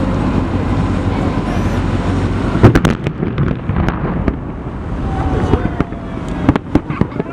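Fireworks salute: a steady low rumble, then a loud bang about two and a half seconds in, followed by scattered cracks and pops and a few whistling tones near the end.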